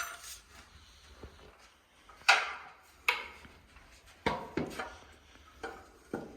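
Flat-pack cot drawer parts being laid out and handled: about six separate knocks and clacks at irregular intervals, with quiet between them.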